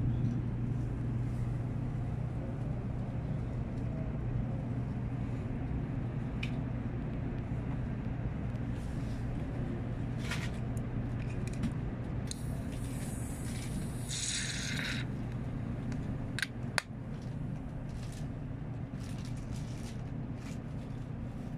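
Steady low hum inside a Shinkansen car standing at a station. An aluminium beer can is handled on the tray table, giving a few sharp clicks and, about two-thirds of the way in, a hiss lasting a couple of seconds.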